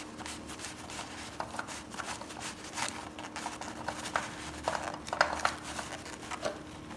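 Spin-on oil filter being twisted off a Harley-Davidson Sportster engine by a gloved hand: the glove rubbing on the canister, with scattered small clicks and crinkles of the paper rags packed beneath, over a faint steady hum. The loudest clicks come a little past the middle.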